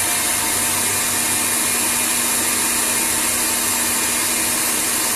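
KitchenAid stand mixer running at high speed, its wire whisk beating Italian meringue just after the hot sugar syrup has been worked in: a steady motor hum with a hiss.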